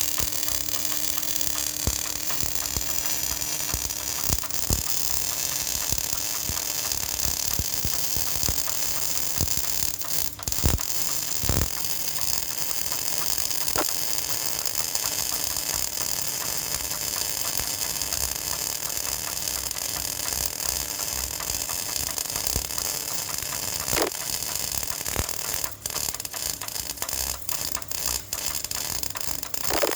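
Electric arc welding: a steady crackling hiss from the arc, with a few sharper pops and several brief breaks in the sound near the end.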